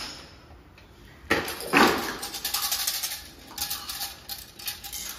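Plastic toys clattering and knocking against each other and a clear plastic storage box as a small child rummages through it. There is a loud clatter a little over a second in, then a run of smaller knocks.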